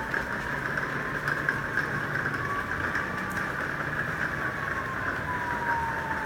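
A motor vehicle passing at a distance, its engine tone slowly rising and then falling in pitch, over a steady background hiss.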